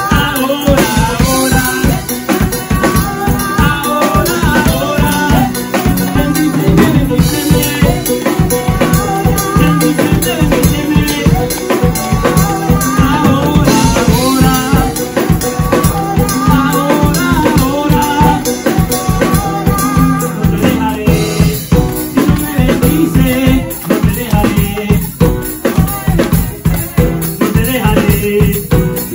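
Live worship band playing an upbeat instrumental passage: drum kit keeping a steady beat with a shaker-type rattle over keyboard and bass.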